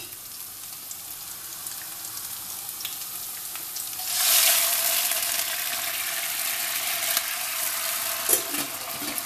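Garlic and shallot soffritto sizzling quietly in oil in a frying pan. About four seconds in, a splash of pasta cooking water goes into the hot oil and it flares into a loud hiss, then settles into a steady, louder sizzle as it is stirred with a spoon, with a few light clicks.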